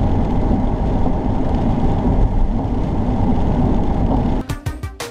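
Steady rumble of a car driving on a wet road, tyre and engine noise with no rises or falls. About four and a half seconds in it cuts off and music starts.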